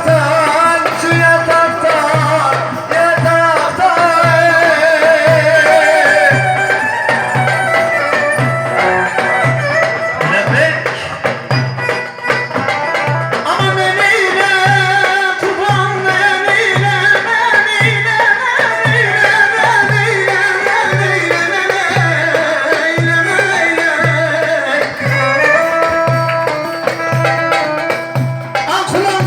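Turkish Barak folk music: an ornamented, wavering melody, sung and played, over a steady low beat.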